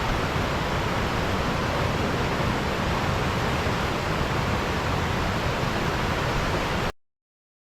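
Waterfall rushing: a steady, even roar of falling water that cuts off abruptly about seven seconds in.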